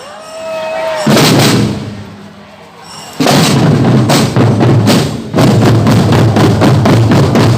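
Drum band playing loud percussion with deep bass drums in bursts of rapid strokes, broken by a short quieter lull about two seconds in.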